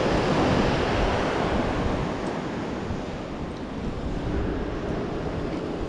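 Sea waves washing against a rocky shore, with wind on the microphone; the surge is strongest in the first second and then eases.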